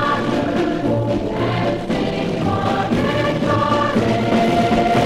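Music: a choir singing held, sustained chords.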